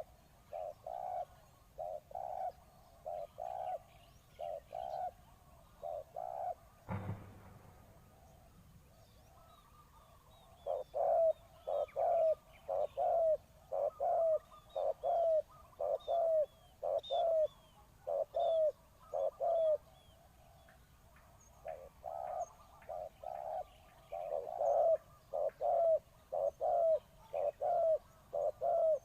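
Spotted dove cooing: series of short, repeated coos, about one or two a second, with a pause after a single sharp knock about seven seconds in. Faint high chirps of small birds sound over the cooing.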